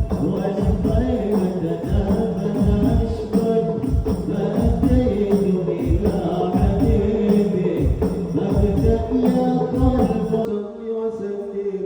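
Sholawat being sung in Arabic to rebana frame drums, the drums striking in a steady rhythm under the voices. About ten and a half seconds in the drumming stops and the singing carries on alone, a little quieter.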